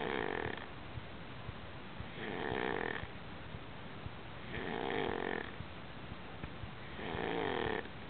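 Snoring in a steady rhythm, a snore about every two and a half seconds, each lasting just under a second, over a steady background hiss.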